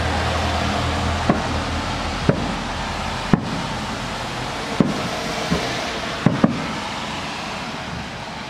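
Distant aerial fireworks: about seven sharp bangs of shell bursts at irregular intervals, two of them in quick succession near the end, over a steady background hiss.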